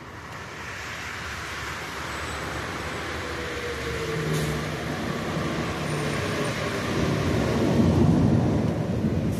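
A large vehicle drives along a rain-wet street, its tyre hiss and engine growing steadily louder as it approaches.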